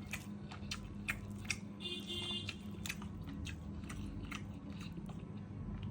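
A person chewing close to the microphone: a steady run of small, irregular crunchy clicks from the mouth, over a low steady hum.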